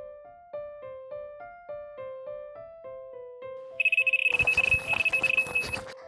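Carp bite alarm giving a run: a loud, steady, high electronic tone starts about two-thirds of the way in, with a rapid crackling clatter alongside, and both cut off after about two seconds. A fish has taken the bait. Gentle piano music plays underneath throughout.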